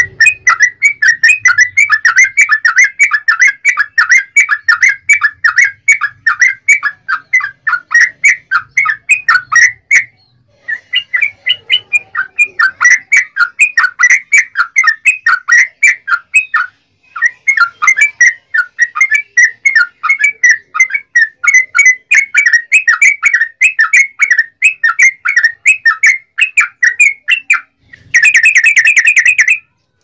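Yellow-vented bulbul singing a long, fast rolling series of repeated chirps, about five notes a second, with two brief pauses. Near the end comes a louder, denser trill about a second and a half long.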